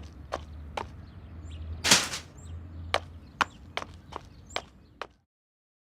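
Footsteps, about two or three a second, interrupted about two seconds in by one loud, noisy sneeze; the sound cuts off suddenly near the end.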